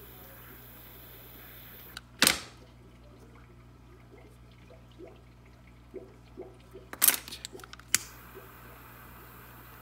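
Small butane torch hissing as it melts a trimmed paracord end; the flame stops about two seconds in, followed by a sharp knock. A few small snipping clicks and two sharper clicks follow, then the torch hisses again near the end.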